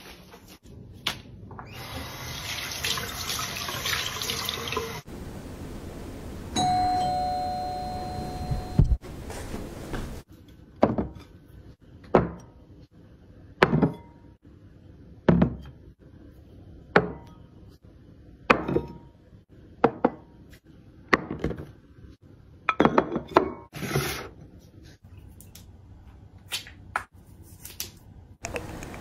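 Water rushing for a few seconds, then a two-tone doorbell chime, higher note then lower. After that comes a run of sharp knocks about every one and a half seconds as dishes are set down one by one on a wooden table.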